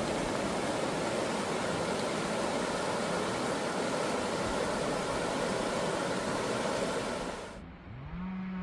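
Rushing water of a shallow set of river rapids, a steady, even rush. It cuts off abruptly about a second before the end, and a quieter low hum rises and holds.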